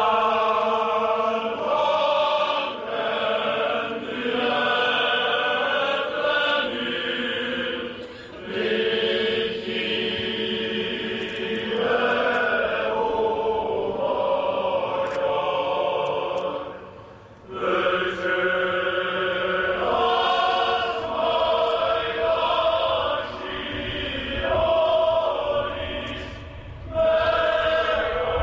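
A choir singing a slow song in long held notes, phrase after phrase with short breaks between them about every nine seconds.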